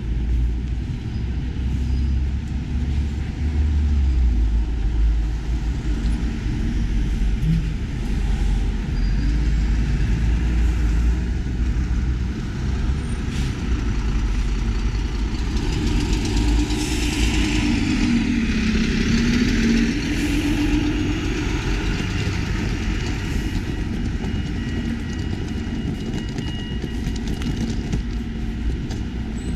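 City street traffic with diesel city buses passing close by; one articulated bus passes loudest around the middle, its engine rising and falling in pitch over the noise of tyres.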